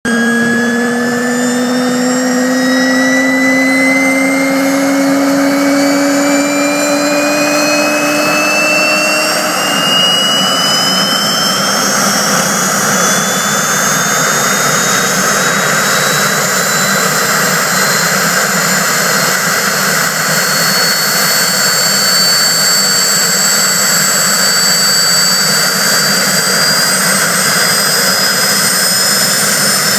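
Aérospatiale SA 315B Lama helicopter's Turbomeca Artouste turbine running up for takeoff: a loud turbine whine rising in pitch over the first ten seconds or so, then holding steady.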